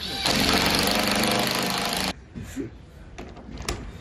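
Electric drill with a long auger bit boring into a thick new timber deck plank, a steady motor run under load for about two seconds that stops abruptly.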